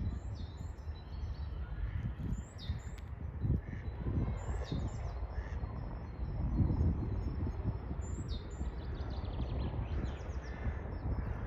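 Small birds chirping: clusters of short, high, falling chirps every couple of seconds, over a steady low rumble.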